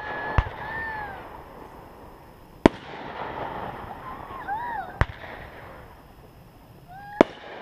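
Consumer fireworks shells bursting overhead with four sharp bangs about two seconds apart, a crackling hiss trailing after them. Between the bangs, short rising-and-falling vocal calls from onlookers.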